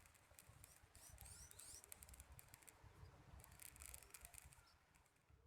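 Near silence: faint outdoor ambience with a low rumble and a few short, high chirps.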